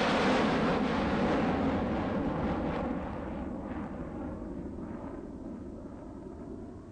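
A loud, rushing roar that is loudest at the start and fades steadily over several seconds, over a low, steady hum.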